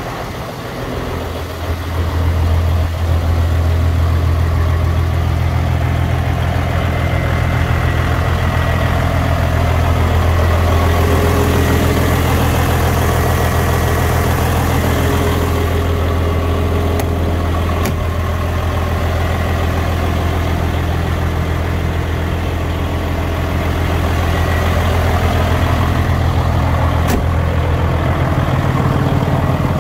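Mercedes-Benz Actros 2835 truck's diesel engine idling steadily. A soft hiss rises for a few seconds midway, and there are a few brief clicks in the second half.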